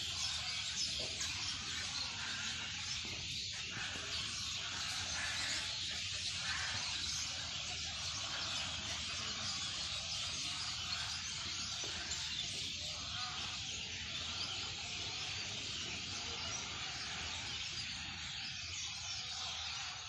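Dense, continuous chatter of a large flock of birds calling as they gather to roost in trees at dusk.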